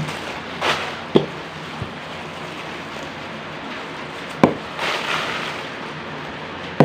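Packaging being handled while unboxing: short crinkling rustles and three sharp clicks or knocks, the last and loudest near the end.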